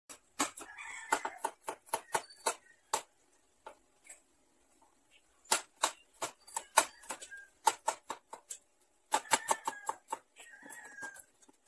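Kitchen knife chopping garlic cloves on a wooden cutting board: quick runs of sharp knocks, about four a second, in three spells with short pauses between.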